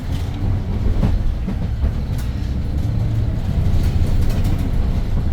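Interior of a Hyundai New Super Aerocity city bus under way: its C6AF Q290 CNG engine running with a low, steady drone, together with road noise and a few light cabin rattles and clicks.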